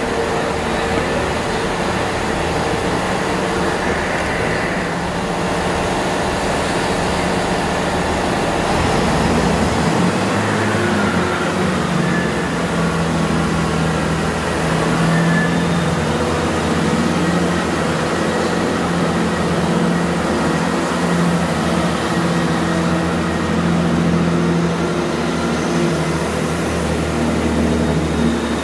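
A Great Western Railway Turbo diesel multiple unit at the platform, its underfloor diesel engines running with a steady drone. The hum deepens and strengthens about ten seconds in.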